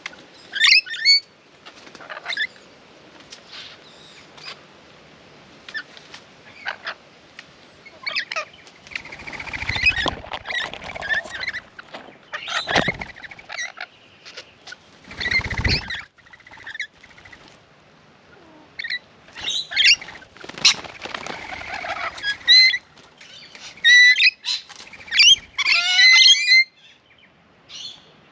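A flock of rainbow lorikeets chattering with short, shrill screeches, thickest near the end, with a few loud scuffling bursts about 10, 13 and 15 seconds in.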